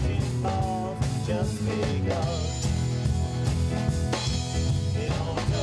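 Live band playing a song: a male voice singing over guitars, bass and drums.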